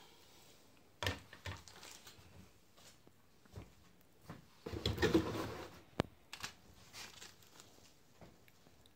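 Scattered handling noises: light rustling and small knocks as a cable is set down on a wooden table and a small bag is picked up and handled. The loudest rustling comes about halfway through, followed by a single sharp click.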